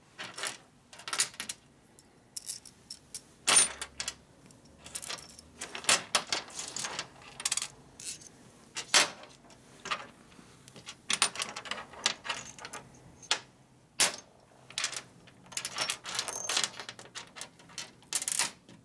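Steel engine bolts and washers clinking against each other and on a metal workbench as they are picked up and sorted, in irregular sharp clicks with short quiet gaps.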